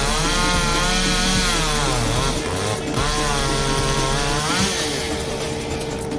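Chainsaw running under load as it cuts into a walnut limb, its engine pitch sagging and recovering several times. A steady held note of background music runs underneath.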